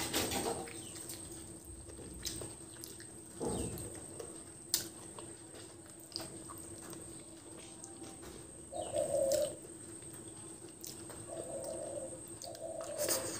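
Wet eating sounds of rice and chicken curry eaten by hand: chewing, lip smacks and small mouth clicks. From about nine seconds in, a pigeon coos several times, over a faint steady hum.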